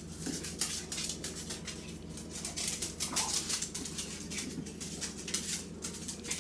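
Poodle puppies and an adult poodle scuffling on a vinyl tile floor: a rapid, irregular pattering and scratching of claws.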